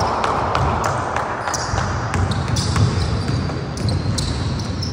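A basketball being dribbled on a gym floor, a series of sharp bounces, with short high squeaks of sneakers as players move and cut.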